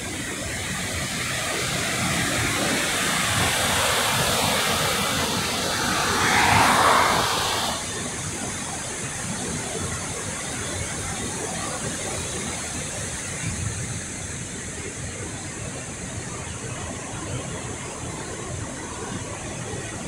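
Steady rushing roar of a large waterfall tumbling down a rock face. A louder rushing swell builds over the first seven seconds or so and cuts off suddenly about eight seconds in.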